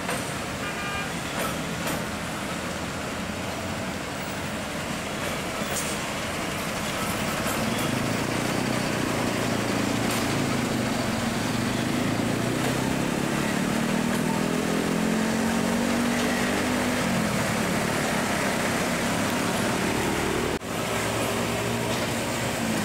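Diesel engines of self-propelled railway track maintenance machines (a tamper and a ballast regulator) running as they roll slowly past. The engine note builds from about eight seconds in and rises in pitch, and it drops out for a moment near the end.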